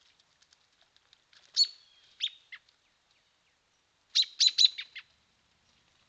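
Small songbird chirping close by: one loud chirp followed by two shorter ones, then a quick run of about five chirps a little past the middle.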